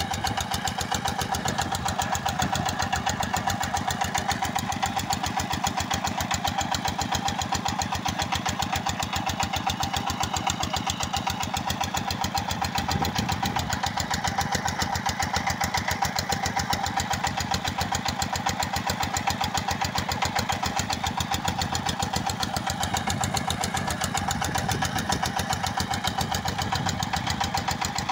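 Diesel engine running steadily at a constant speed, belt-driving a vertical-shaft irrigation pump, with a fast, even chugging beat.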